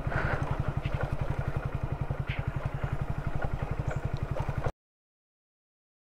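Motorcycle engine running at low revs with a fast, even beat, with a few light knocks and rattles as the bike rides over a rutted dirt track. The sound cuts off abruptly about four and a half seconds in.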